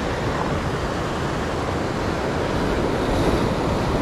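Sea surf breaking and washing over rocks, with wind rumbling on the microphone; a steady rush of noise.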